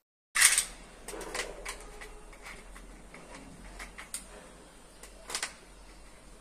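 Clicks and light clatter of an adjustable aluminium frame's plastic hinge joints being handled and worked, opening with a sharp knock about half a second in and a louder pair of knocks about five seconds in.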